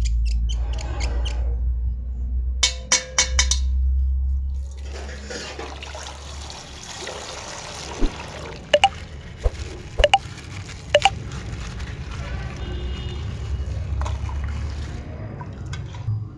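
Coloured water pouring and dribbling from a popped plastic bag, with the crinkle of handled plastic and a few sharp clicks between about eight and eleven seconds in.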